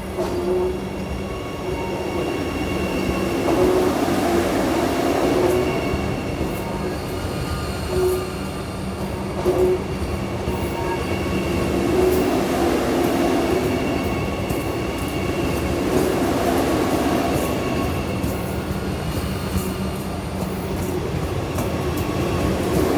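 Vande Bharat trainset rolling along the track, a continuous rumble with a steady hum and whine, a few wheel clicks, and some squeal from the wheels.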